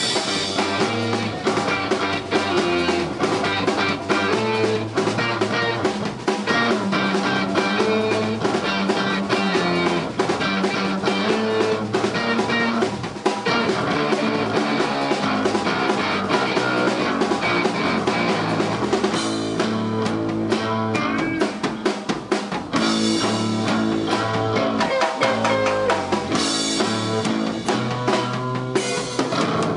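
Live rock band playing an instrumental passage: a drum kit with snare and bass drum keeping a steady beat under electric guitar and bass.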